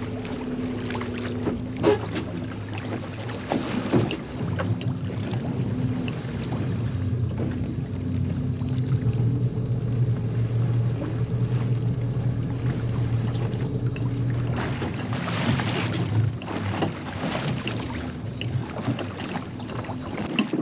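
Small boat's engine running steadily while the boat pulls back on its anchor line. The note steps up about four seconds in and settles back about fifteen seconds in, with a short rush of noise around then.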